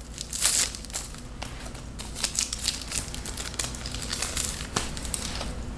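Handling noise from a leather bag strap being worked by hand, with many small, sharp clicks from its metal clip hardware.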